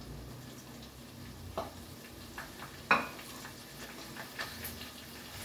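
Tempura frying in oil in a pan with a faint sizzle, while a utensil taps against the pan and plate in a few light clicks; one sharp clink about three seconds in is the loudest sound.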